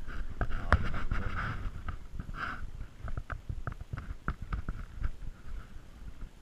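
Footsteps of someone walking quickly through dry scrub and tussock, with irregular crunching, brushing and knocking of boots and gear.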